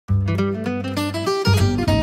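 Instrumental background music: a melody of short plucked-string notes over a bass line, starting right away.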